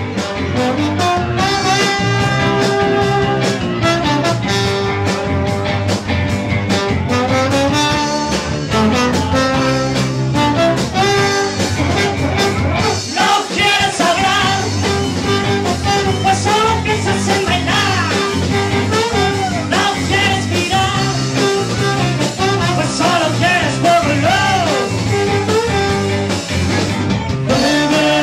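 Live band playing an upbeat sixties-style medley: trombone over electric guitar and bass, with a rhythm section.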